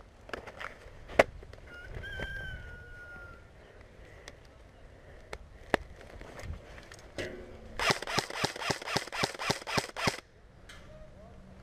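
Airsoft rifles firing: scattered single sharp shots, then a rapid string of about a dozen cracks lasting about two seconds near the end.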